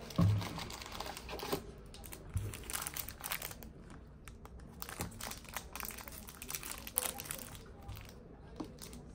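Irregular crinkling and rustling of something being handled at close range, with a soft thump just after the start.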